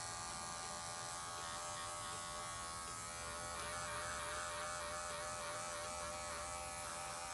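Electric dog grooming clippers running with a steady buzzing hum while trimming the fur around a dog's paw pad.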